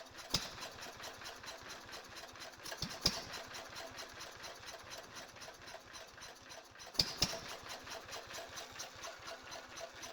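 Lister D single-cylinder four-stroke air-cooled engine running steadily with a fast, even beat, with a few sharp louder knocks: one just after the start, one about three seconds in, and two close together around seven seconds.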